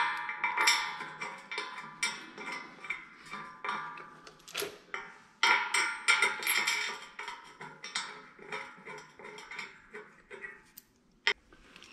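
Steel bolts and washers clinking and ticking against a steel base plate as they are set into floor anchor inserts and turned in by hand. The light metallic clicks come in an irregular run, with a short ring after some of them.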